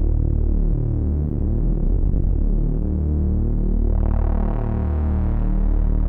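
Behringer Neutron analog synthesizer playing a low, pulsing sequence of stepping tones. About four seconds in, the sound brightens.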